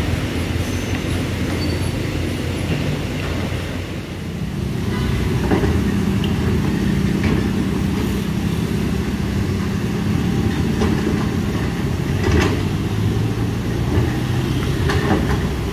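Road traffic moving slowly past: the engines of cars, motorbikes and buses running, with a heavier engine's steady low hum coming in about five seconds in.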